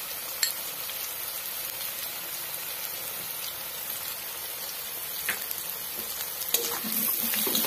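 Potato wedges frying in hot oil in a metal kadhai: a steady sizzling hiss, with an occasional faint click.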